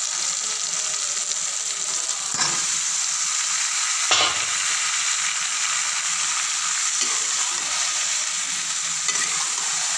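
Cubed bottle gourd going into hot oil and tomato masala in a pan and frying: a steady sizzle, with a couple of knocks, the loudest about four seconds in.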